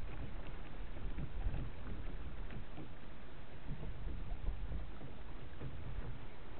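Water swishing and lapping along the hull of an Alcort Sunfish sailing dinghy under way, with small irregular slaps. A steady low rumble of wind on the microphone runs underneath.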